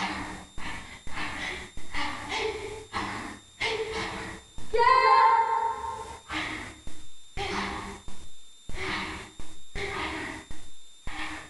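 Karate students' voices: a quick run of short, sharp shouts or counted commands, about two a second, with one long, loud kiai shout about five seconds in.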